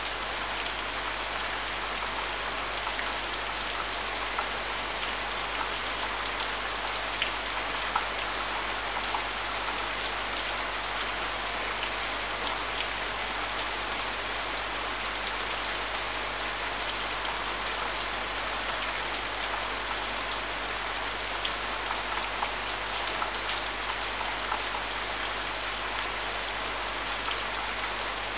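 Steady rain falling, with many small drop ticks scattered through the hiss.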